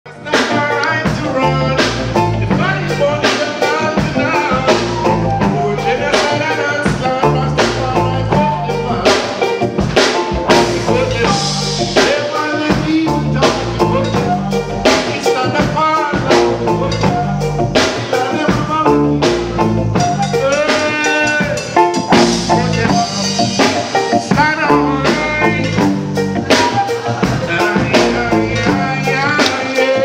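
Live reggae band playing: drum kit keeping a steady beat under bass, flute and other instruments, with a voice singing at times.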